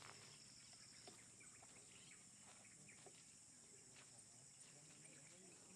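Near silence: a faint, steady high-pitched chirring of insects, with a few faint ticks and snaps.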